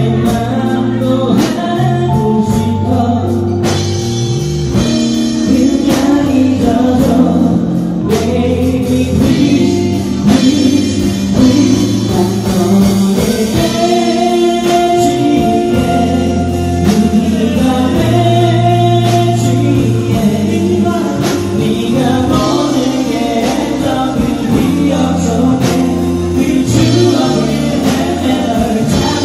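Live band playing a pop song: a male singer over electric guitars, bass guitar, drums and keyboard.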